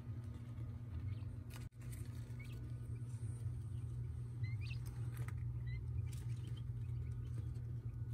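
Day-old quail chicks giving faint, short rising peeps, about half a dozen scattered through, with a few soft taps, over a steady low hum.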